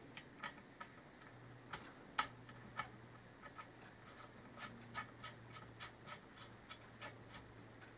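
Faint, irregular small metallic clicks and ticks as a bolt is screwed in finger tight by hand into an aluminium motorcycle crankcase, over a faint steady hum.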